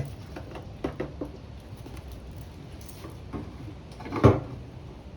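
Light knocks and clatter of small parts and tools being handled during a generator repair, with one louder knock about four seconds in.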